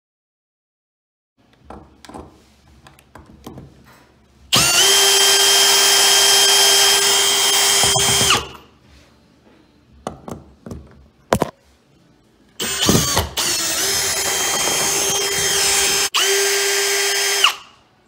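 Power drill driving the screws of an old brass deadbolt's thumb-turn plate to take the lock off: two runs of a steady motor whine, each about four to five seconds long, with clicks of handling between them.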